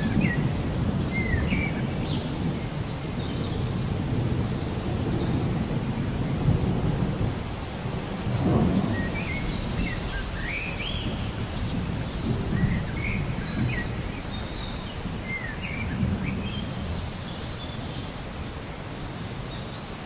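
Steady rain with low rolling thunder that swells and fades, loudest at the start and again about eight seconds in. Birds chirp short rising and falling notes throughout.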